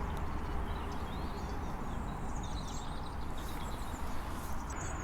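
Small birds chirping in quick short phrases over a steady low outdoor rumble.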